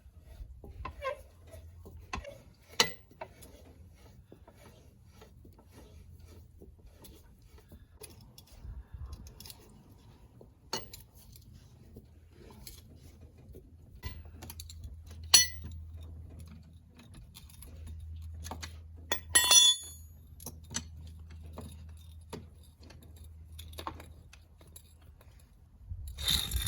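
Scattered metallic clicks and clinks from a car jack and its crank handle as the car is lowered on it, with one ringing metal clink about three-quarters of the way through, over a low steady hum.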